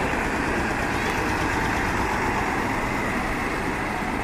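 Heavy truck engines idling in a steady din.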